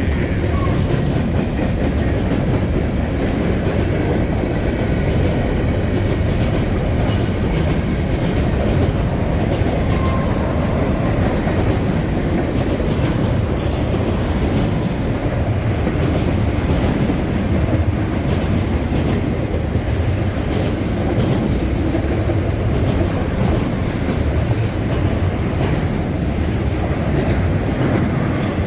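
Freight train rolling past, with a loud, steady rumble of steel wheels on rail and the clickety-clack of wheels over rail joints.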